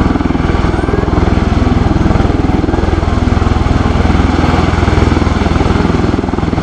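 MV-22 Osprey's twin prop-rotors and turboshaft engines running loud and steady, with a rapid low pulsing beat from the rotor blades, as the tilt-rotor hovers and manoeuvres slowly in helicopter mode.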